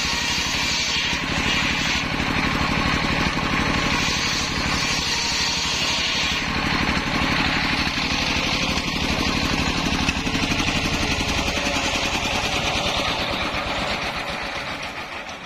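Engine of a homemade mobile circular saw rig running steadily with a fast even pulse, belt-driving the large circular saw blade, with a strong hiss over it. The sound fades away near the end.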